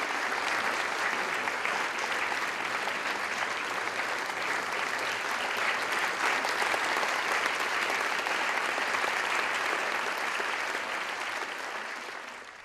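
Concert audience clapping, a steady, even applause that fades out near the end.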